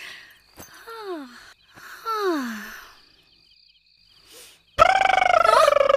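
Snoring: two breathy snores about a second apart, each a drawn-out exhale that slides down in pitch like a groan, the second longer and louder. Music starts suddenly near the end.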